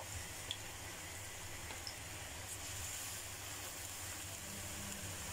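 Corn fritters frying in hot oil in a small pan: a steady, quiet sizzle with a few faint pops.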